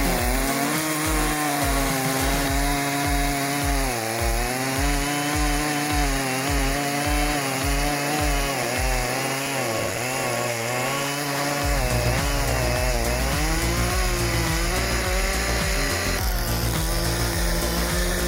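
Handheld power saw mounted on a sliding rail, its motor running and dipping in pitch under load as it cuts through wood. Background music with a steady beat plays throughout.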